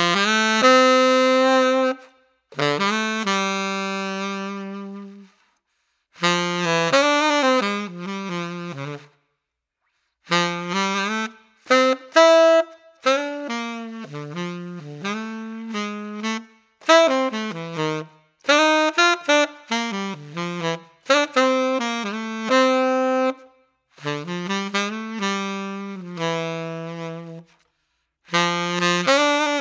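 Tenor saxophone played solo with no accompaniment, on a JodyJazz HR* Custom Dark hard-rubber mouthpiece with a 7* tip opening and a 2.5-strength reed: a dark-toned melody in phrases of a few seconds, separated by short pauses for breath. The tone is crisp without losing its dark quality.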